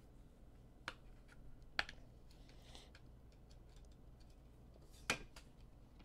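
Faint handling noises of a trading-card pack being opened and its cards pulled out: a few light clicks and taps with a soft rustle, then a sharper tap about five seconds in as the stack of cards is set down on the table.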